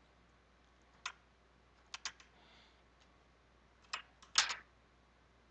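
Computer mouse and keyboard clicks: a handful of short, sharp clicks spread out, some in quick pairs, with faint room tone between.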